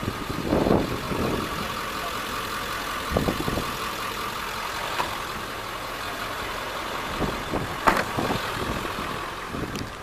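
A vehicle engine idling steadily, with a few knocks and clatters from gear being handled in the open cargo area of an SUV. The sharpest knock comes about eight seconds in.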